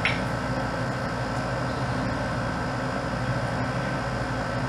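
Steady background hum with hiss, unchanging throughout.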